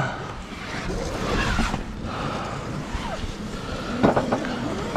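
Sailboat under sail in a blustery sea with the engine off: a steady rush of wind and waves against the hull, with a couple of sharp knocks about four seconds in.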